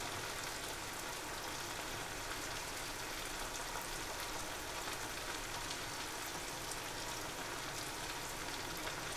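Jaggery syrup at a hard boil in a pan, a steady crackling, bubbling hiss, as wheat-flour batter is poured into it.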